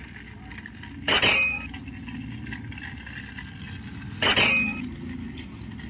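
Two sharp plastic-and-metal clicks about three seconds apart, each with a short ringing: AA batteries being pressed into a plastic toy train's battery compartment against its spring contacts.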